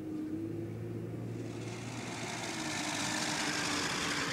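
Four-wheel-drive vehicle's engine droning steadily while driving, with a rushing noise that grows louder from about a second and a half in.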